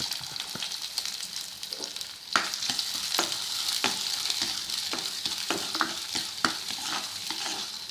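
Chopped onions sizzling in hot oil with cumin seeds, stirred in the pan with irregular clicks and scrapes of the utensil.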